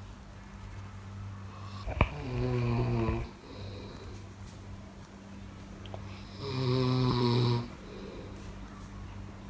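A person snoring: two loud snores about four and a half seconds apart, each lasting just over a second, with quieter breathing in between.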